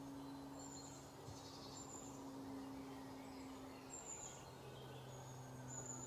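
Faint outdoor ambience: small birds chirping in short high calls and brief falling whistles, over a steady low hum.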